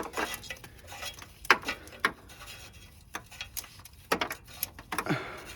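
Irregular metal clicks and knocks of a wrench and oxygen-sensor socket working a car's oxygen sensor loose.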